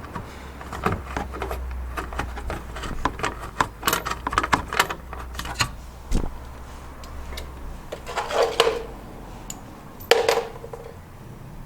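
A run of small clicks and taps from hands finger-starting a small screw into the plastic wheel well liner, with two short scraping sounds near the end.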